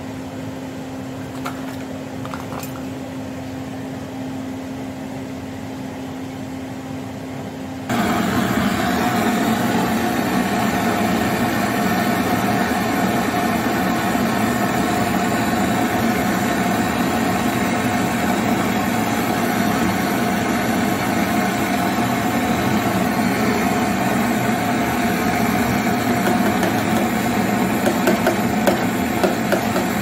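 Brazing torch flame hissing steadily as it heats the refrigerator's filter-drier pipe joints to unbraze the drier for replacement. The hiss starts abruptly about eight seconds in, over a steady low hum, with a couple of small clicks early on and a few light metal taps from pliers near the end.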